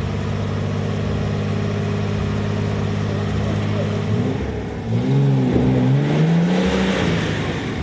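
Off-road 4x4 vehicle's engine running steadily, then revving up and down from about halfway through, with a rush of hiss building near the end.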